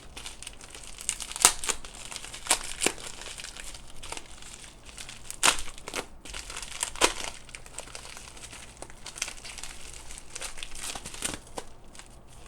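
Packaging being unwrapped by hand: steady crinkling with irregular sharp crackles, the loudest a few single snaps in the first half.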